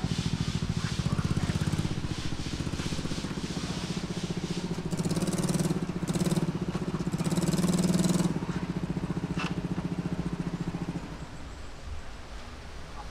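A motor vehicle engine running steadily with a low pulsing hum. It swells louder three times in the middle, then dies away about eleven seconds in.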